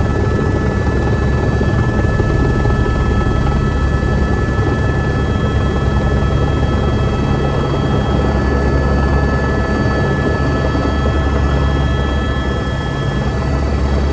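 Helicopter heard from inside the cabin while descending to land: steady low rotor and engine noise with several steady high whining tones above it.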